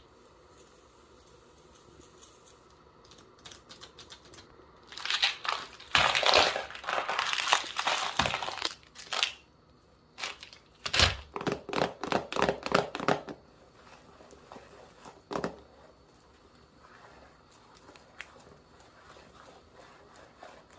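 Crinkling and crackling of something handled, in two dense stretches of rapid sharp crackles, then one more brief crackle.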